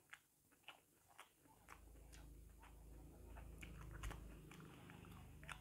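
Faint, scattered sticky clicks and smacks of ripe jackfruit flesh being pulled apart by hand and chewed. A low rumble comes in about a second and a half in and fades out near the end.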